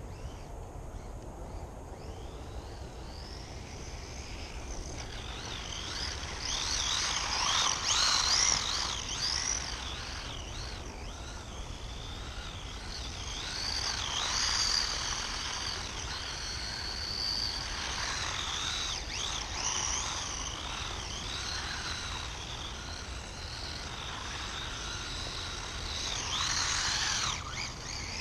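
The electric motor of a WLtoys A959-B 1:18 brushless RC buggy whining as it drives. The pitch rises and falls with the throttle, and the sound swells louder several times as the car comes close.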